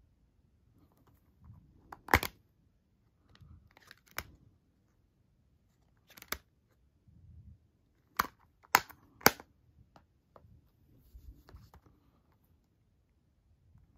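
Plastic Blu-ray cases being handled: a case snapping open and shut with sharp clicks, three of them in quick succession a little past the middle, with soft rubbing and sliding of the plastic between.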